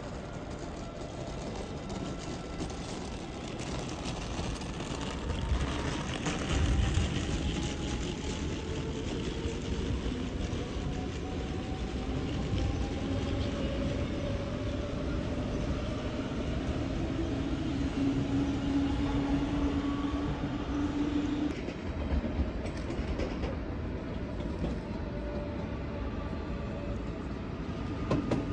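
Deutsche Bahn class 424/425/426-family electric multiple unit accelerating: its traction drive gives several whining tones that climb slowly in pitch over the rumble and clatter of the wheels on the track. The running noise grows louder, and the strongest whine stops about three quarters of the way through.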